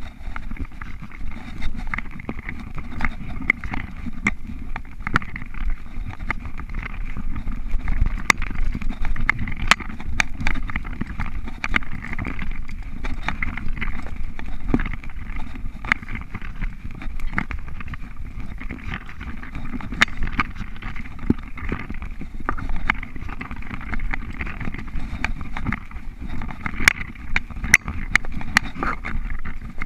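Mountain bike rolling fast down a dirt singletrack: a steady rumbling noise of the ride, broken by frequent sharp clicks and rattles as the bike jolts over bumps and roots.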